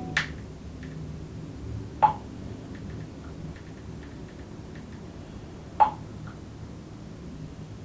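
Three short, sharp clicks a few seconds apart, with a few faint ticks between them, over a low steady room hum.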